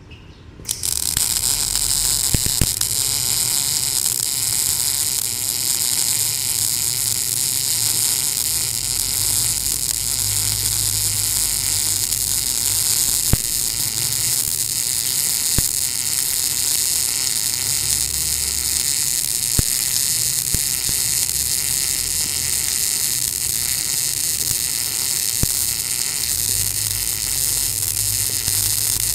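MIG welding arc from an NBC 288 welder laying a continuous bead on steel plate: a steady hissing buzz that strikes up about a second in and holds without a break.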